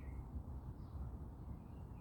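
A few short, faint bird chirps from small songbirds, one falling in pitch right at the start, over a steady low rumble.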